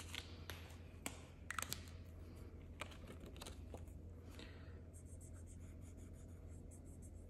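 Paper banknotes and a binder envelope handled, with a few light clicks and rustles. After about five seconds, a felt-tip marker scribbles on a paper card, colouring in a box.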